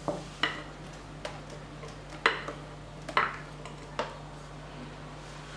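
A spatula knocking and scraping against bowls as whipped cream is scooped out and shared between them: six or so short, sharp knocks at irregular intervals over a faint steady hum.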